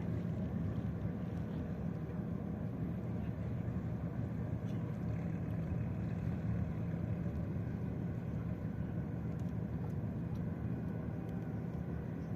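Steady low rumble of the ship Logos Hope's engines as it moves away from the quay, holding even in level throughout.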